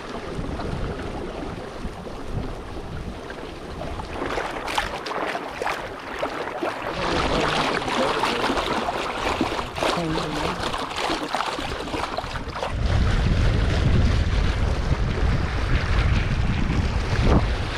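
Water rushing and splashing along the hull of a small Snark Sunflower sailboat under sail, loudest in the middle stretch. Wind buffets the microphone with a heavy low rumble over the last few seconds.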